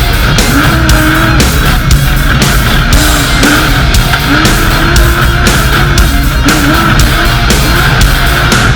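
Loud heavy metal music with a fast drum beat, with an off-road race vehicle's engine revving up and down underneath it.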